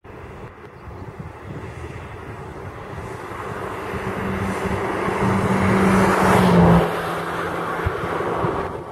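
A motor vehicle passing on a highway: engine hum and road noise build steadily for several seconds, are loudest about six and a half seconds in, then drop off quickly.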